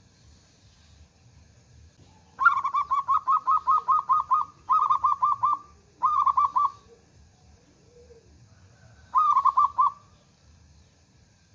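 Zebra dove cooing: a long run of rapid staccato notes beginning about two seconds in, then two short runs, and after a pause of about three seconds one more short run.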